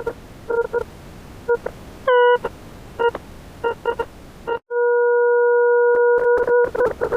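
Computer-generated tones from the Desmos graphing calculator. A hiss is broken by short beeps, a tone drops quickly in pitch about two seconds in, and from about five seconds in a steady tone with overtones sounds, choppy with clicks and short gaps near the end.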